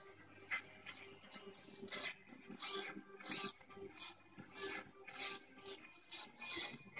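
Hobby servo motors of a 3D-printed pan-tilt camera mount whirring in short, quick bursts, about one or two a second, as the mount steps back and forth.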